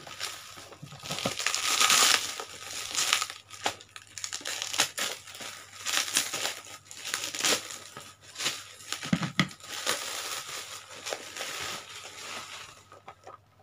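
Plastic bubble wrap crinkling and crackling as it is cut with scissors and pulled off a packaged box, with many sharp crackles. It is loudest about two seconds in and dies away near the end.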